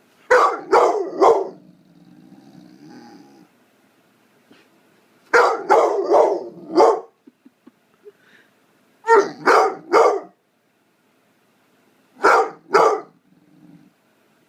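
Young blue fawn pit bull barking in bursts of two to four sharp barks a few seconds apart, with a low grumble after some bursts: attention-seeking barking.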